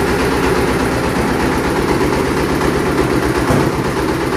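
Mini tractor engine idling steadily with an even firing rhythm, its pitch shifting slightly about three and a half seconds in.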